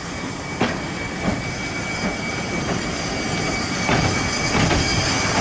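Steel train wheels squealing against the rail in a steady high tone, with a few sharp clicks, as the steam locomotive runs round its train. The sound grows louder about four seconds in.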